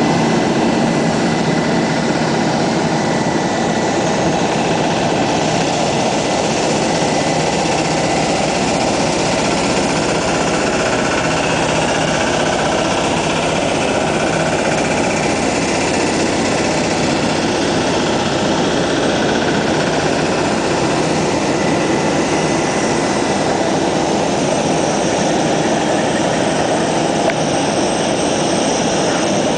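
Jet airliner noise on the apron: a steady, loud rush with a faint high whine running through the first two-thirds.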